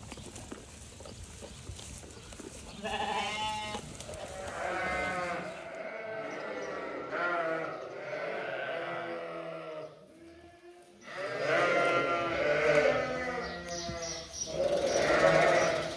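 Sheep bleating, a string of long wavering calls one after another starting about three seconds in, the loudest near the end.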